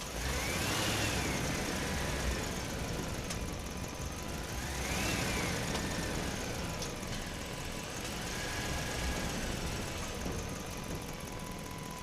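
An engine running, with a whine that rises and falls in pitch twice and later holds steady for a moment.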